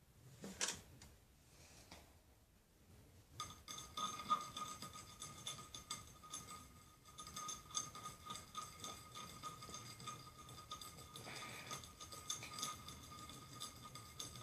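A utensil stirring soap-and-salt mixtures on a plate, with faint clinks and scrapes against the plate. From about three seconds in the clicks come fast and unevenly, over a faint steady high whine.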